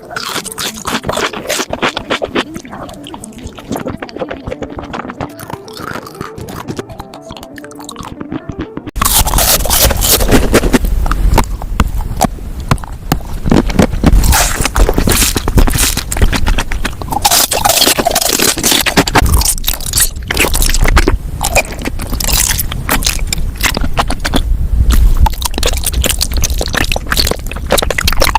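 Close-miked eating sounds: food being bitten, crunched and chewed in a mukbang. The sound becomes suddenly much louder and denser about nine seconds in.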